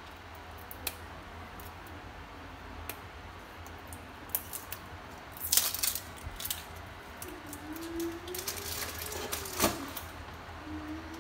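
A covered pot simmering on an induction hob, with irregular small clicks and taps, probably from the bubbling and the glass lid. The clicks come thicker and louder about five and a half seconds in and again from about eight to nearly ten seconds, over a low steady hum. A faint wavering drone rises and falls from about seven seconds in.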